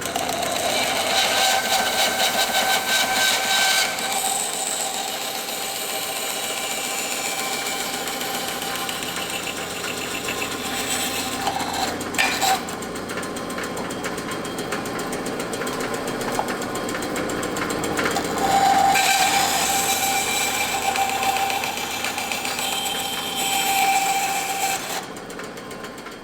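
Bandsaw running and cutting wood, a steady whistling whine that grows louder while the blade is in the cut, early on and again in the last few seconds, with a brief knock about halfway through.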